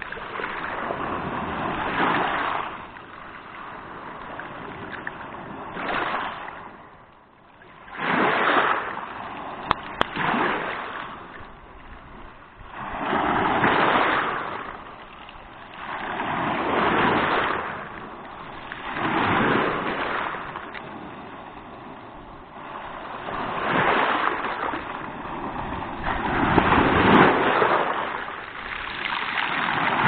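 Small Black Sea waves breaking on a pebble beach and washing up and back over the stones, a surge of surf every few seconds.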